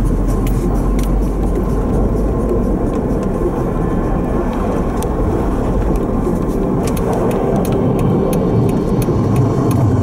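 Car driving slowly over a snow-packed, rutted street, heard from inside the car: a steady low rumble of engine and road noise with scattered sharp crackles from the tyres on the packed snow.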